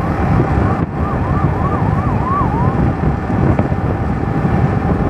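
Yamaha R15 V3's single-cylinder engine running steadily at highway cruising speed, with heavy wind rush on the microphone. Over it, a siren-like wail sweeps up and down about three times a second and stops about halfway through.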